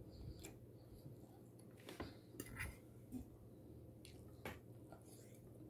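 Faint clinks and scrapes of a metal fork against a ceramic plate as food is scooped up, a handful of short separate sounds spread over a few seconds.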